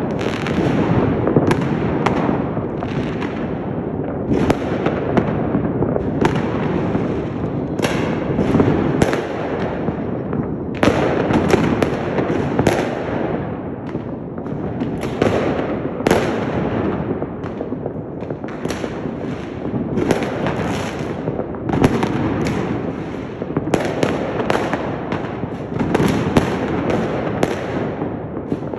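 Fireworks going off all over a city at once: a continuous barrage of bangs and crackling, with many sharp reports every second.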